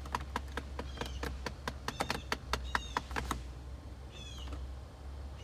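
Heater blend door actuator behind the dash of a 2008 Dodge Avenger RT clicking rapidly and irregularly, several clicks a second, stopping about three seconds in, with a few short high squeaks. The clicking is the sign of a blend door going bad.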